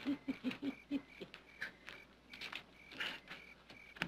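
Crickets chirping at night, a short high chirp repeated evenly a few times a second. Over it, a man's low chuckle in the first second and small clicks as he fumbles with a music box without getting it to play.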